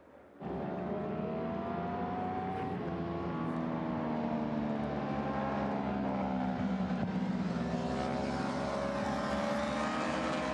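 Ducati Panigale V4 R superbike's V4 engine running at low revs as the bike rolls slowly, its pitch rising and falling gently with the throttle. The sound cuts in abruptly about half a second in.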